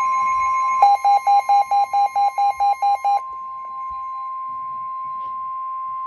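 Midland S.A.M.E. weather alert radio sounding a severe-weather alarm: the steady, high NOAA Weather Radio warning tone. About a second in, a rapid beeping of some four to five beeps a second joins for a couple of seconds. After that the steady tone carries on more quietly on its own.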